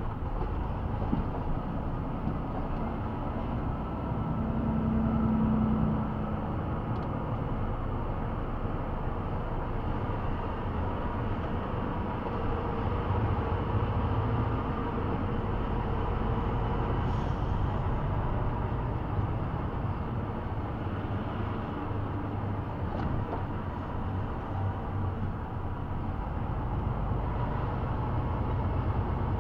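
Engine and road noise heard from inside a moving vehicle's cab: a steady low rumble that swells briefly about five seconds in.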